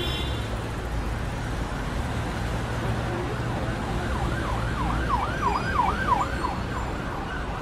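Siren in a fast yelp, rising and falling about three times a second, starting about halfway through and stopping near the end, over a steady low rumble like traffic.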